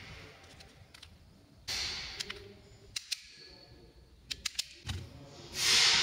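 Small sharp clicks and ticks as hands work a wire and the small plastic parts of an automotive connector: a rubber seal and a terminal going onto the wire end. A hissing rush starts suddenly and fades away twice, once about two seconds in and again, louder, near the end.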